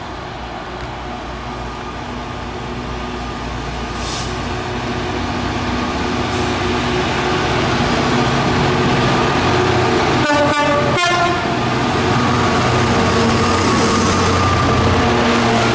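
Two Class 66 diesel locomotives hauling a freight train approach and pass close by. Their EMD two-stroke V12 engines run with a steady drone that grows louder as they near. A short horn sounds about ten seconds in.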